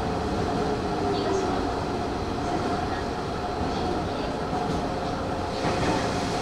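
Hanshin Railway electric train running steadily, a continuous rumble with a faint steady hum above it.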